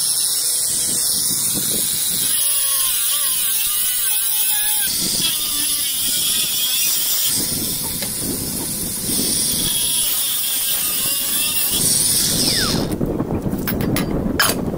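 Water from a garden hose running and splashing into an empty steel gas cylinder, with a few sharp knocks near the end.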